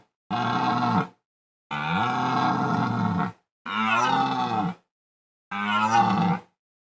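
Red deer stag roaring in the rut: four long, deep bellows, each about one to one and a half seconds, with short silences between them.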